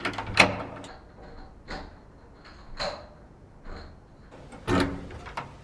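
A door lock and lever handle being worked with a key: sharp clicks and knocks just after the start and again near the end, with a few fainter ticks in between.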